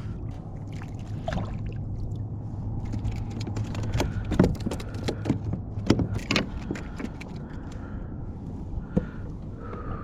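Irregular knocks, clicks and rattles against a kayak as a small speckled trout is landed and unhooked, over light water sounds and a low hum that stops about six seconds in.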